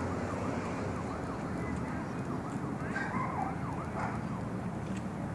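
A distant emergency-vehicle siren cycling quickly up and down in pitch, faint over a steady low background rumble.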